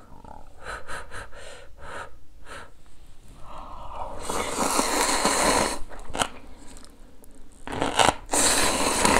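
Close-up eating sounds: a few short crunchy chewing sounds, then long, loud slurps of instant noodles, one starting about four seconds in and another near the end.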